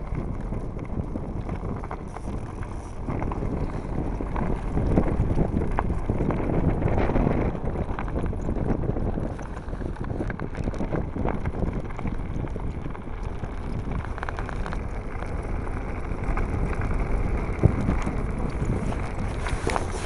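Wind buffeting the microphone over the steady rumble of a Blokart land yacht rolling across a hard, dry lakebed, with scattered clicks and rattles.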